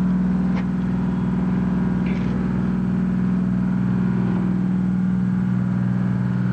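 Steady low hum of running machinery, one unchanging pitch with overtones, with a couple of faint clicks.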